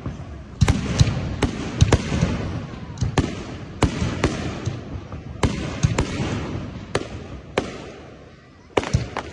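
Aerial fireworks bursting in an irregular series of sharp bangs, about one or two a second, with crackling hiss between them. The bangs ease off briefly about eight seconds in, then a quick cluster follows.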